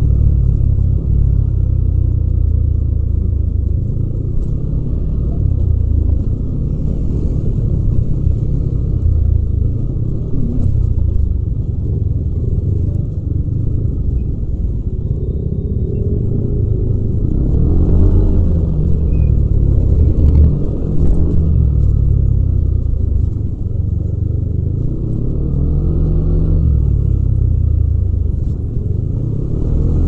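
Yamaha Aerox 155 scooter's single-cylinder four-stroke engine and exhaust, heard from the rider's seat, running and repeatedly opening up and easing off, its pitch rising and falling several times.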